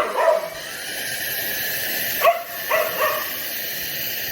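A dog barking: two quick barks at the start, then three more a couple of seconds later. The barks sound over the steady whir of a cordless stick vacuum's motor.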